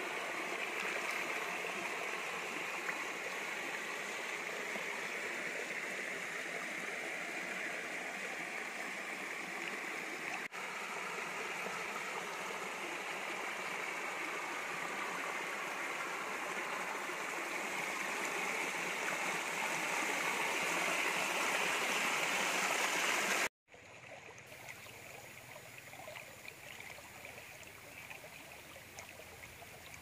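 Small stream cascading over rocks: a steady rush of running water. About three-quarters of the way through it cuts off abruptly and comes back as a quieter, softer water sound.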